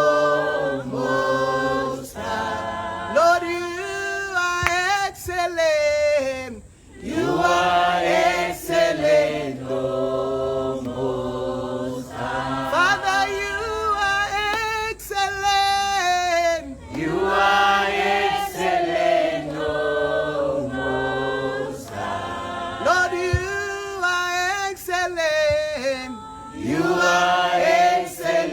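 A group of voices singing a worship song together in sustained, gliding phrases.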